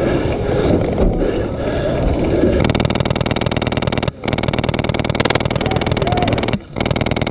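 HPA-powered airsoft light machine gun (Polar Star F2-engined Mk48) firing on full auto: rapid, even cycling starts about two and a half seconds in and runs in long bursts, with two brief pauses near the middle and towards the end.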